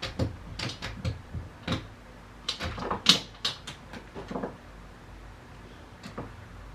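A boxer dog shifting about on a wood floor, making a run of irregular sharp clicks and taps, the loudest about three seconds in, then quieter for the last two seconds.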